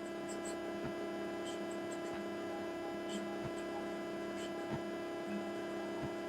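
A steady hum of several held tones at once, with a few faint clicks scattered through it.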